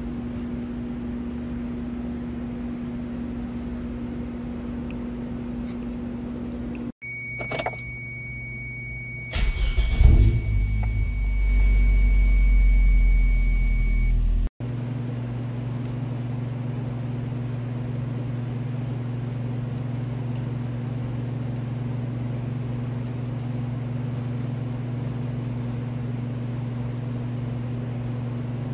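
Keys jingle in the ignition of a Toyota 1NZ-FE inline-four, which is cranked and catches about ten seconds in, then idles with a steady low rumble heard from the driver's seat: the first start after an oil and filter change. A steady high warning tone sounds alongside, and before and after a steady electrical hum runs on.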